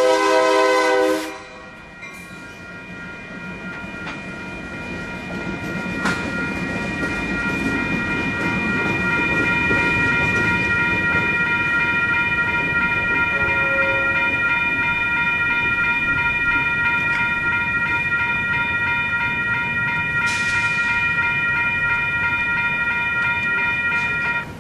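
Diesel freight locomotive horn sounding its chord and cutting off about a second in. Then a level-crossing bell rings steadily while Union Pacific diesel locomotives approach and pass with their train, the engine and wheel rumble growing louder over the first several seconds and then holding.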